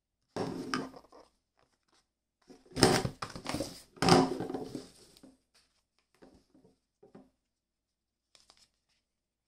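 Plastic packaging crinkling and tearing as it is handled and pulled open, in bursts that are loudest about three and four seconds in, followed by a few light handling clicks.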